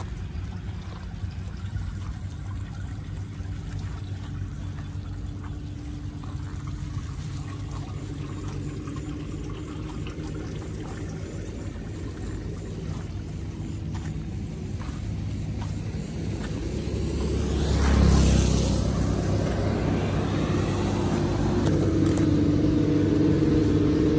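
Road traffic on a wet street: a steady low engine hum, with a car passing about three quarters of the way in, its tyres hissing on the wet road. A louder steady engine drone builds near the end.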